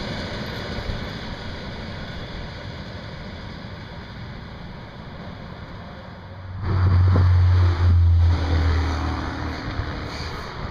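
ET2M electric multiple unit train running away along the track, its noise fading. About six and a half seconds in, a loud low rumble cuts in for about two seconds and drowns it out.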